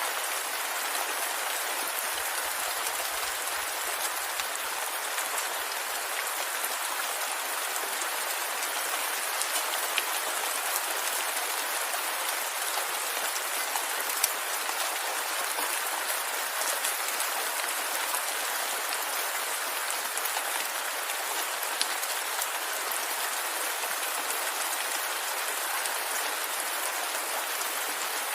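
Steady rain falling on a surface, a dense even patter with scattered louder drops.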